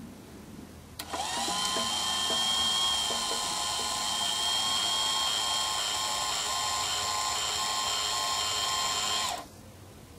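Small DC motor salvaged from an old printer running under load as it winds the door cord onto its shaft to lift the coop's plywood pop-hole door. It spins up with a brief rising whine about a second in, holds a steady high-pitched whine, then cuts off suddenly near the end as the limit switch stops it at fully open.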